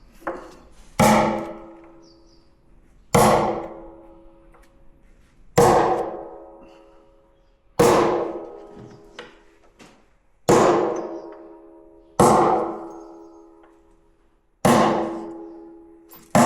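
Hammer blows on the steel hoop of an oak whisky barrel: about eight heavy strikes roughly two seconds apart, each leaving the hoop ringing as it fades.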